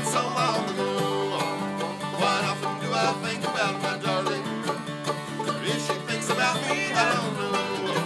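Bluegrass trio playing a song: a banjo, a mandolin and an acoustic guitar, with sung vocals over them.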